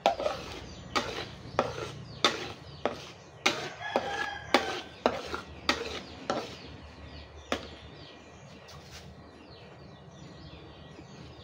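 A metal spatula scraping and knocking against a metal wok while a thick sauce is stirred, about two knocks a second, stopping about seven and a half seconds in. Chickens cluck in the background.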